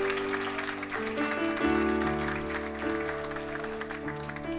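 Live band playing the instrumental intro of a slow song: held keyboard chords that change every second or so, with electric guitar.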